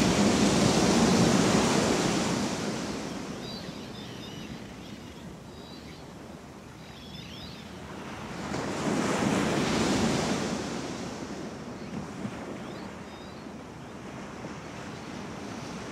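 Ocean surf washing in slow swells. One wave peaks at the start and another about nine seconds in, with faint high chirps in the lulls between them.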